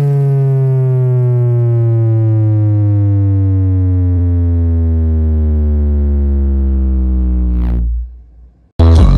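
A loud, buzzy synthesizer tone with many overtones, held for about eight seconds while sliding slowly down in pitch. It fades out, and loud bass-heavy dance music cuts back in near the end.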